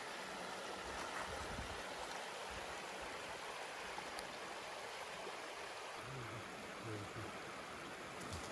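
Steady rushing of a stream running over stones.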